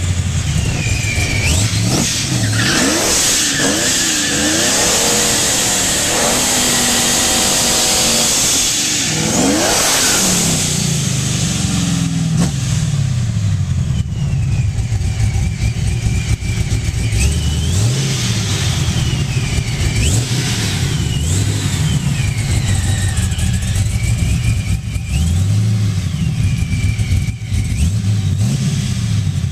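Procharger-supercharged LS1 V8 of a Chevrolet Camaro SS being revved while the car stands: a long stretch of hard, noisy revving in the first ten seconds or so, then repeated throttle blips, the engine pitch rising and falling every two to three seconds. The supercharger's high whine rises and falls along with each rev.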